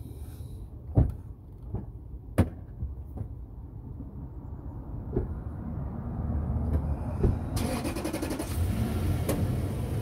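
Hands handling an electrical wire and a small plastic connector: a few sharp clicks and knocks over a low rumble, with a hissing rustle in the last couple of seconds.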